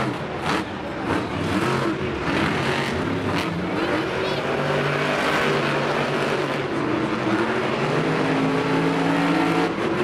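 Monster truck engines, supercharged V8s, revving up and down as two trucks race around a dirt track. A few sharp knocks come in the first few seconds.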